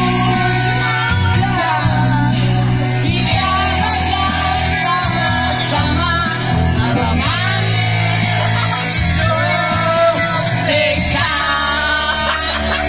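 A man singing loudly into a microphone over rock music with guitar, his voice holding and bending long notes.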